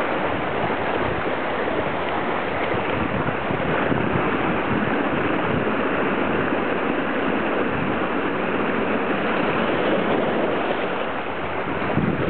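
Choppy sea water washing and splashing against the shore: a steady rush of surf.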